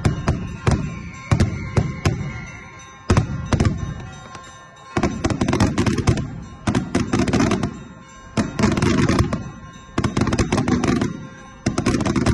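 Daytime fireworks going off overhead. There are single sharp bangs, each with an echoing tail, and from about five seconds in, longer bursts of rapid crackling.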